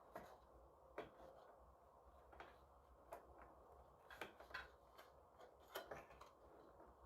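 Faint, irregular clicks and taps of cables and plastic connectors being tucked into a computer case, a few in quick clusters about four and six seconds in.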